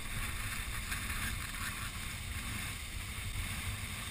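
Wind of about 22 mph buffeting the camera microphone, a steady fluttering low rumble, over the hiss of rough surf.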